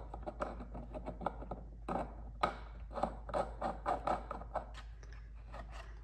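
Brass pressure regulator valve body being screwed by hand into an air compressor's regulator port: a quick run of light clicks and scrapes from the threads and fingers that dies away about four and a half seconds in.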